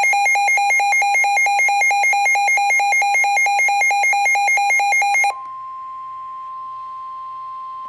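A weather radio's alert beeping rapidly and loudly for about five seconds over the steady single-pitch NOAA Weather Radio warning alarm tone. The alarm tone carries on alone after the beeping stops. The tone is the signal that a new warning broadcast follows.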